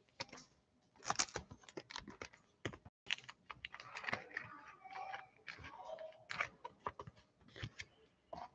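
Faint, irregular small clicks and crackles of hands handling small objects, starting about a second in.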